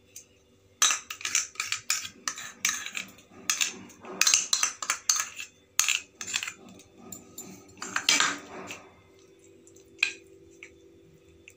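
Metal spoon scraping and clinking against a stainless steel dish in quick, irregular strokes as a vegetable and white-sauce topping is spread, then a single clink near the end.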